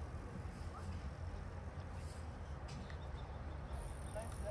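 Outdoor ambience: a steady low rumble, with faint distant voices and a few small chirps.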